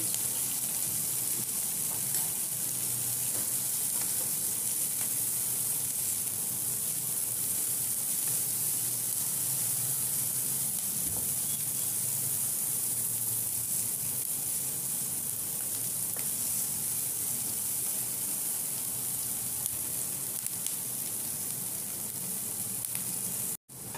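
Chopped capsicum, peas and onion sizzling steadily as they sauté in butter in a nonstick pan, stirred with a wooden spatula. The sound cuts out for a moment near the end.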